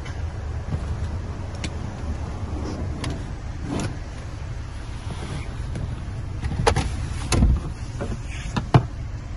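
Handling noise in a car's interior: scattered sharp clicks and knocks over a low steady rumble, with a dull thump about seven seconds in.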